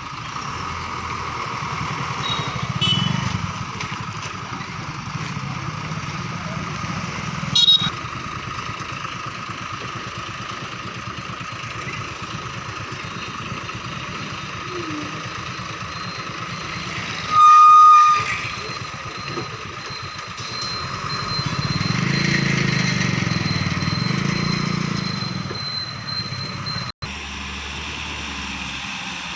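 JCB 3DX Plus backhoe loader's diesel engine running steadily and revving up under load twice, about three seconds in and again past twenty seconds. A short, loud horn toot about halfway through, and a sharp knock near eight seconds.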